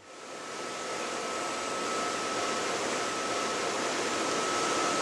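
Steady running noise of shop machinery: an even hiss with a thin, high, steady whine, fading in over the first second or two.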